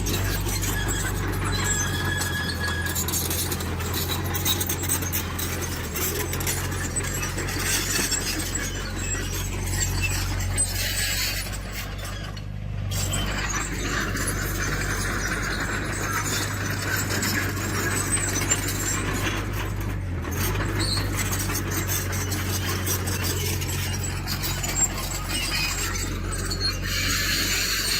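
Tracked earthmoving machine at work: a diesel engine running steadily under the squeal and metallic clanking of steel crawler tracks.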